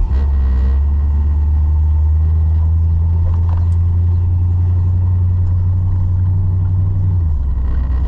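1981 Chevrolet C10 pickup driving, its engine and road noise making a steady low drone that drops and eases off about seven seconds in.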